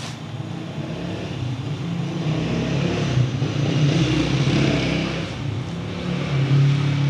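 A motor running with a steady low hum, growing louder around the middle and again near the end.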